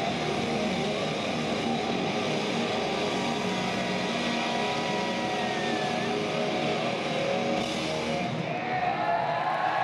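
Live hard-rock band with overdriven electric guitar through Marshall stacks, held in a dense, steady roar of sustained chords and stadium crowd noise as the song winds down. Near the end the wash thins and wavering, gliding high tones come through.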